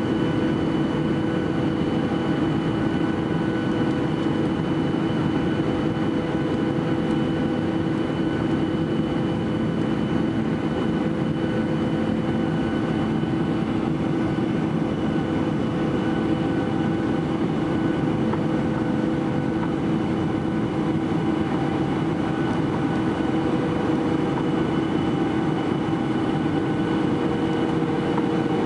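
Cabin noise inside a Boeing 737-800 on descent: the steady hum of its CFM56-7B turbofan engines, with several held tones over a constant rush of air.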